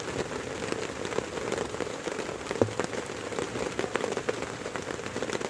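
Heavy rain falling steadily, a dense patter of countless drops, with one sharper tap about two and a half seconds in.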